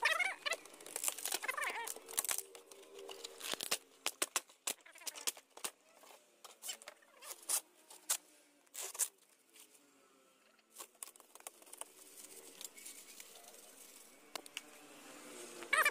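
Irregular crackling, rustling and sharp tearing clicks of fiberglass mat being torn and handled by hand, with a short lull a little past the middle.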